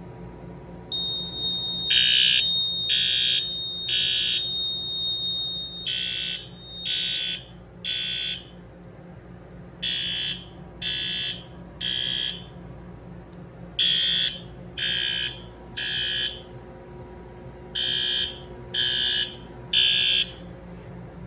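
Fire alarm horns on a Notifier NFS-320C's notification circuit, which is set as a horn circuit, sounding the temporal-3 evacuation pattern: three blasts a second apart, a pause, then again, over and over. A steady high tone sounds along with the first two groups and stops about seven seconds in.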